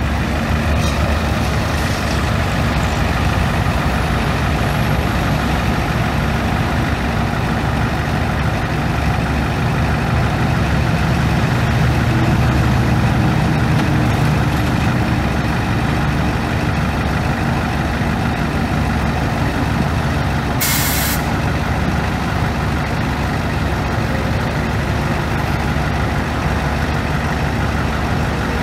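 Cummins ISB 5.9-litre straight-six turbo diesel of a 1995 Ford F800 bucket truck running steadily. About twenty seconds in comes one short, sharp hiss of air from the truck's air-brake system.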